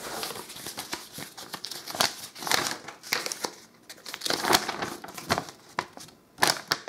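Paper and cardboard packaging rustling and crinkling in irregular bursts as a box flap is opened and folded paper instruction sheets are pulled out and unfolded.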